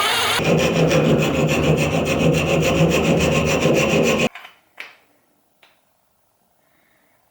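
Continuous rasping of a tool working the knife, with a fast, even pulsing. It cuts off abruptly about four seconds in, followed by a few light knocks.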